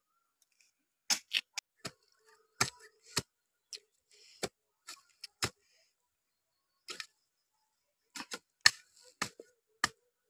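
Machete chopping at the base of a bamboo clump among dry leaves: a series of sharp, irregular strikes in small clusters, with short pauses between.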